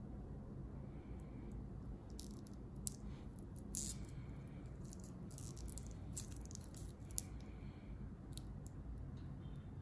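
Faint, scattered light clinks and rustles of a stainless steel watch bracelet handled in cloth-gloved hands as the watch is turned over, with a low steady room hum beneath.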